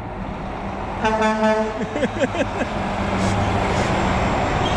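A big truck's horn gives one short toot about a second in. The truck's engine and tyre noise then swells as it passes.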